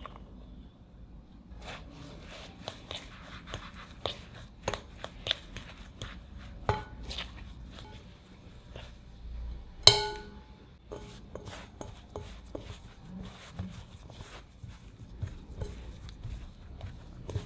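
A metal fork stirring and mashing corn flour into mashed potato in a glass bowl: irregular scraping and tapping, with the fork clinking against the glass. The loudest moment is one sharp clink with a ringing tone, about ten seconds in.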